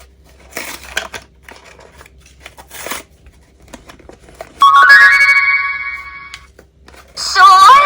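Packaging rustling and crinkling, then a children's sing-along toy microphone plays electronic tunes through its small built-in speaker. About halfway through, a loud held chime fades over two seconds, and near the end another burst of wavering melody starts.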